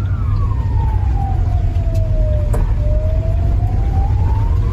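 A siren wailing, its pitch sliding slowly down and back up again over about five seconds. Under it runs a heavy, steady low rumble.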